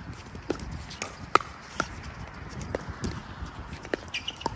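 Pickleball paddles hitting a hard plastic ball in a close-range rally: a series of sharp, irregular pops with a short ring, roughly one every half second to a second.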